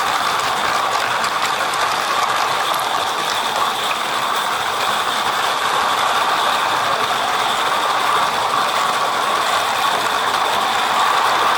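A 16mm-scale live-steam garden railway train running: a steady, even clatter of the goods wagons' wheels and running gear on the 32 mm gauge track.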